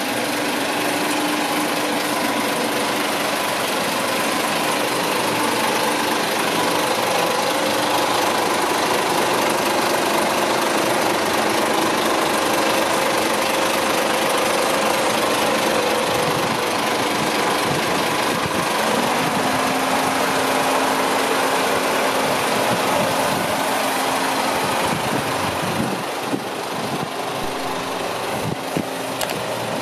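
Diesel engine of a Hino Victor 500 concrete mixer truck running steadily, with a few knocks near the end.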